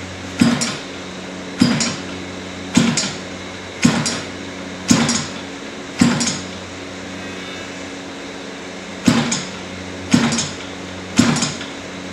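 A series of short, sharp mechanical knocks, roughly one a second with a pause of about three seconds in the middle, over a steady low hum.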